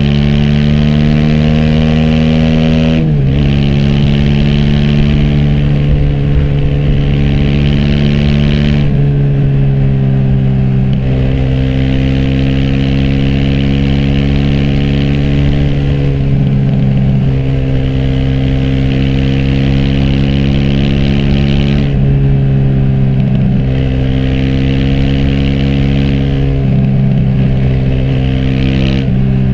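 Aprilia SX 125's single-cylinder four-stroke engine through an Arrow racing header and Arrow Thunder slip-on exhaust with dB-killer, running under way at fairly steady revs. Several times the note dips briefly and settles at a new pitch, as at gear changes.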